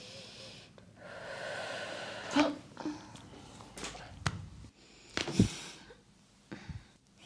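Joints cracking under a manual back and neck adjustment: a long breath out, then a loud sharp crack about two and a half seconds in. A few more short pops and knocks follow, the last of them near the middle as loud as the first, with breathing between them.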